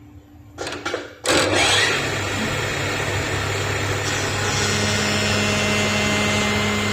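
A couple of clicks, then a little over a second in, an electric machine tool's motor starts up with a loud rush, rises in pitch briefly and runs on steadily with a low hum.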